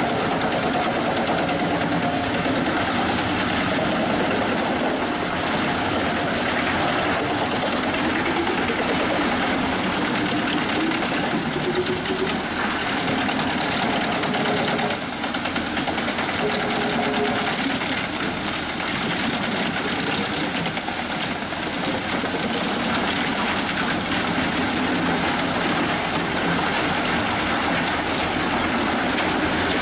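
Pezzolato PTH 1000/1000 G drum wood chipper running off the PTO of a 360 hp New Holland tractor: a steady, loud mechanical din of tractor engine and spinning drum, with a brief dip about halfway through.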